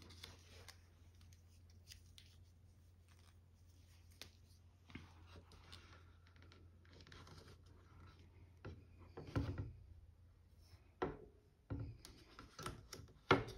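Quiet cross-stitching sounds: thread drawn through Aida fabric and the fabric handled, faint rustling with a few short soft knocks near the end, over a low steady hum.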